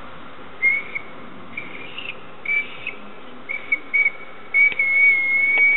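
Whistle of a radio-controlled model sternwheel paddle steamer, sounding at one steady high pitch: a series of short toots, then one long blast of about a second and a half near the end.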